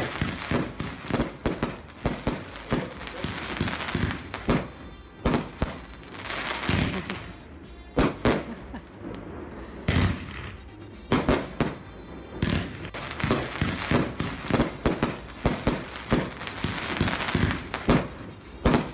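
Fireworks going off: many sharp bangs in quick, uneven succession, with stretches of crackling hiss between them.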